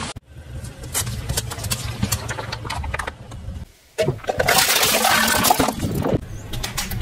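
Car tyre rolling over plastic containers packed with water beads, crushing them in a loud burst of cracking plastic and splashing that lasts about two seconds, starting just past halfway. Before it, a car's engine runs low with scattered crackles and clicks.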